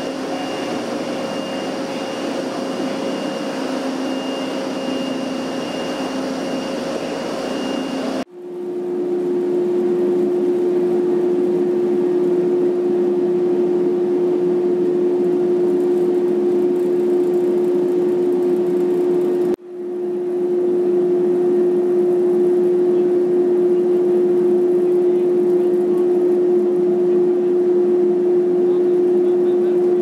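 Steady drone of dairy manure-processing machinery: a solids separator running with a few steady pitches. About eight seconds in, the sound changes abruptly to a louder, steadier motor hum with one strong pitch, by the solids belt conveyor. That hum drops out for a moment about twenty seconds in and comes straight back.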